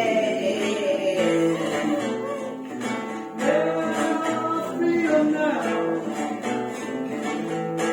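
Guitar playing the instrumental break of a folk song, with voices still singing along after the chorus.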